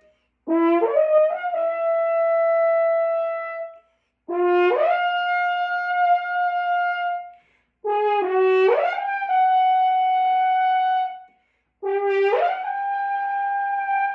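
A brass instrument playing warm-up long tones: four held notes, each starting on a low note and slurring up about an octave, then held for two to three seconds before a short break.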